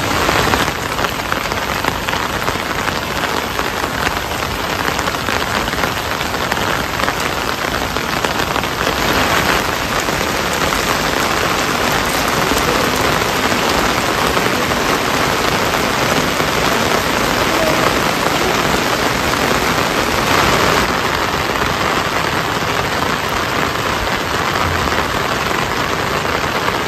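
Steady rain falling, a dense, even spread of drop sounds that holds at one level throughout.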